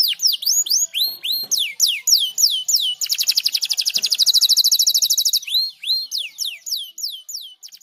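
Domestic canary singing: a run of quick downward-sweeping whistled notes, about five a second, breaking about three seconds in into a fast, dense trill for a couple of seconds, then rising and falling notes again before the song stops near the end.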